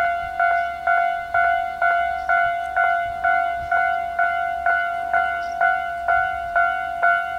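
Japanese railway level crossing warning bell sounding its standard tone: identical ringing strikes repeating evenly, about two a second, each holding its pitch until the next.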